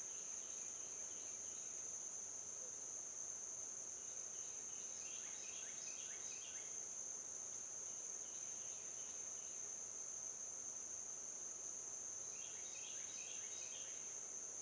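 Steady high-pitched chorus of insects. Short runs of rapid chirps cut in several times, about every few seconds.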